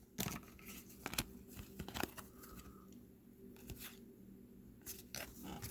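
Trading-card pack wrappers and cards being handled: scattered crinkles, small tears and card clicks, at a low level.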